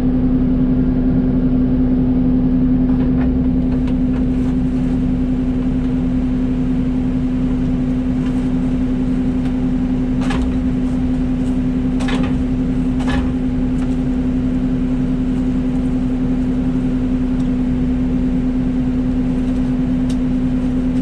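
Excavator's diesel engine running steadily under load with a constant hum. Three sharp knocks come a second or two apart about halfway through.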